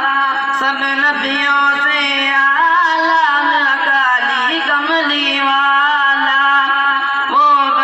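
A boy singing a naat, an Urdu devotional song in praise of the Prophet, into a microphone, with long held notes that bend and waver in ornamented runs.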